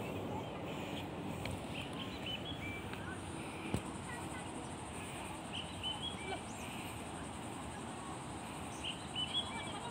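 Small birds chirping in short clusters of high chirps every few seconds, over steady outdoor background noise, with one sharp click about four seconds in.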